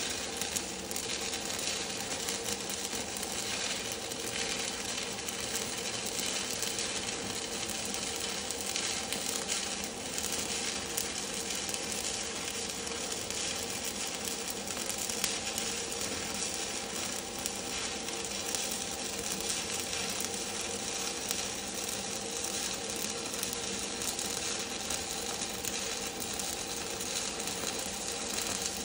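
Stick-welding arc from a 7018 low-hydrogen electrode, burning steadily without a break as a vertical-uphill (3G) bead is run.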